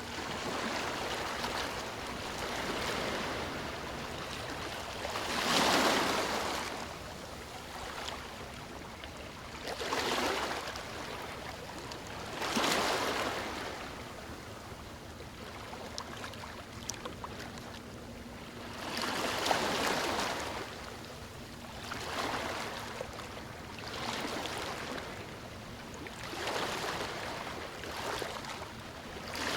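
Sea waves washing onto the shore: surges of surf that rise and fall every two to four seconds, the strongest about six, ten, thirteen and twenty seconds in.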